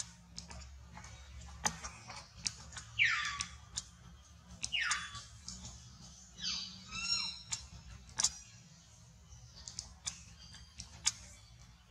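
High-pitched calls of a baby macaque: two short squeals falling steeply in pitch, then a longer, shrill squeal, over scattered sharp crackles like dry leaves being handled.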